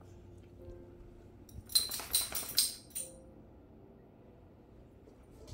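Metal dog collar and leash hardware jingling: a quick run of clinks lasting about a second, beginning a little under two seconds in, then one last clink a moment later.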